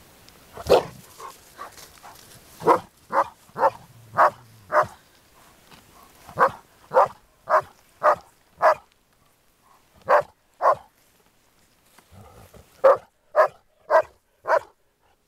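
Groenendael (Belgian Shepherd) barking repeatedly in play at another dog guarding a toy. The barks are sharp and come in runs of four or five, about half a second apart, with short pauses between runs.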